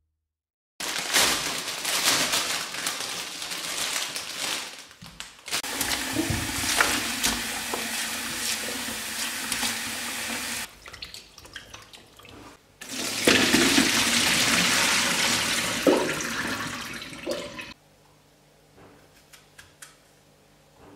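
Kitchen tap running into a glass bowl of strawberries, the water splashing over the fruit, in three spells with short breaks between. Near the end the water stops, leaving a few faint clicks as a knife hulls strawberries on a wooden cutting board.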